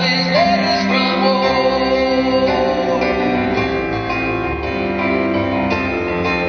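A slow ballad performed live: a man singing over a Yamaha stage piano, with held, sustained notes.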